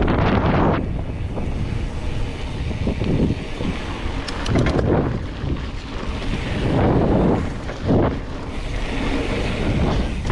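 Wind buffeting the microphone during a fast mountain-bike descent, with bike tyres rolling on a dirt trail. The rush swells and eases several times, with a brief run of clicks about four and a half seconds in.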